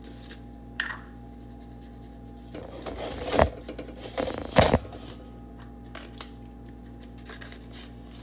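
Whole raw chicken being lifted and turned over by hand in a speckled enamel roasting pan: two loud bursts of rubbing and knocking, about three and a half and four and a half seconds in, then light clicks of a spice bottle being opened.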